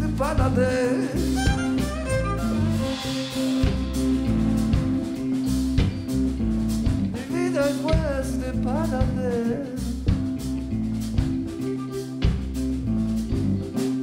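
A blues-rock band playing a slow, melancholy song live: electric guitar, bass guitar, drum kit and violin, with a man singing a phrase near the start and another about halfway through.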